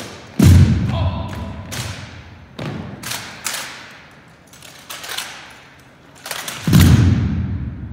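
Rifle drill by an honor guard team: hands slapping the drill rifles and rifles striking in unison, a series of sharp knocks with two heavy thuds, about half a second in and near the end, echoing around a gymnasium.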